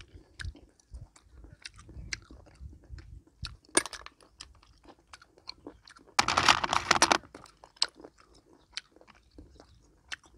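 Small snail shells clicking and tapping as they are handled and picked at with a toothpick, mixed with close-up chewing. About six seconds in there is one louder, dense burst lasting about a second.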